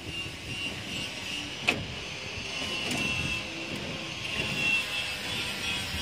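A steady, engine-like background hum with a higher wavering tone, and one sharp click a little under two seconds in.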